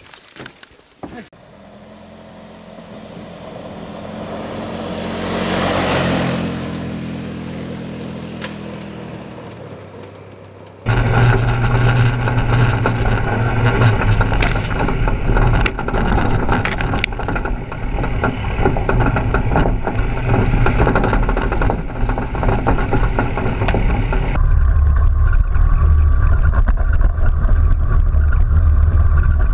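An ATV engine approaches and passes, its pitch and loudness rising to a peak about six seconds in and then fading. Then the sound is heard up close on the moving machines: loud, steady ATV engine and drivetrain running along a dirt trail, with frequent knocks and rattles from the towed trailer bumping over the ground.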